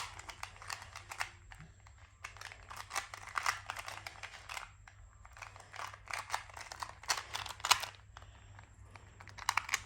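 2x2 Rubik's Cube being turned quickly by hand: runs of rapid plastic clicks as the layers snap round, broken by short pauses between turning sequences.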